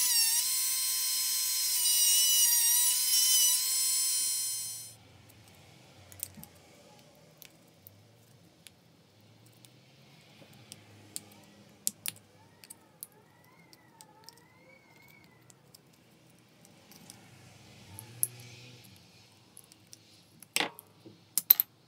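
Cordless rotary tool with a small cutting disc running at high speed, cutting into a black plastic housing from an impact driver: a high whine with many overtones that winds down and stops about five seconds in. After it, soft handling clicks, then a few sharp plastic clicks near the end as the housing is worked open.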